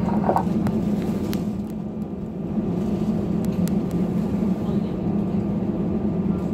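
Steady low hum inside the cabin of an Airbus A320 taxiing after landing, with a few light clicks.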